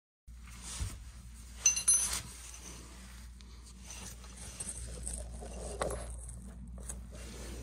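Light metallic clinks and rattles of a wrench and bolts as the last transmission pan bolts are taken out, with two sharper ringing clinks about two seconds in.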